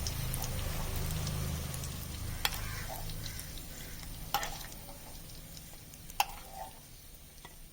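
Cashews sizzling as they fry in hot ghee and oil, the sizzle slowly fading, while a utensil knocks sharply against the pan three times.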